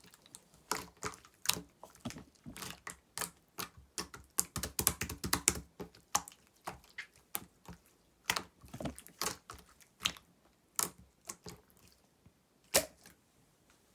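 Slime being pressed, stretched and folded by hand, giving a run of sharp wet clicks and pops. The clicks come thickest a few seconds in, then thin out, with a single loud pop near the end.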